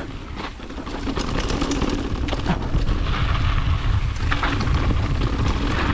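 Mountain bike riding down a dirt trail: wind rumbling on the microphone, with tyre noise and short rattling clicks from the bike, getting louder about a second in as speed picks up.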